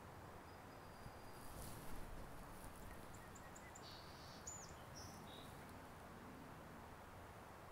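A bird chirping faintly in a series of short high notes and a quick up-and-down whistle, over a steady low hiss, with a brief rustle shortly before.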